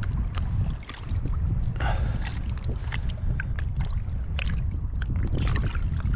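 Water splashing and sloshing in short bursts as hands handle a pike in a landing net at the surface, over a steady low wind rumble on the microphone.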